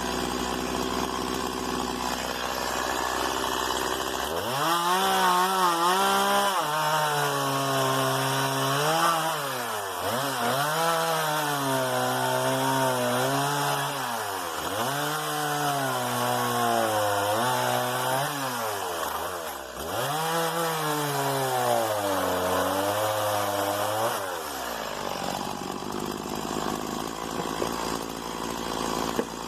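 STIHL MS 170 two-stroke chainsaw idling, then held at full throttle for about 20 seconds while it cuts wood. Its engine pitch sags and recovers several times as the chain takes load. It drops back to idle near the end.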